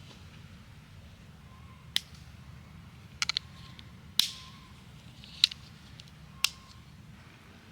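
A handful of short, sharp clicks and snaps spaced about a second apart, one of them a quick triple click and the loudest ringing on briefly.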